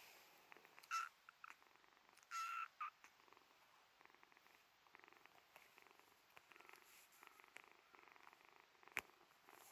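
Young kitten mewing twice, a short high mew about a second in and a longer one a moment later, then purring faintly. A single sharp click near the end.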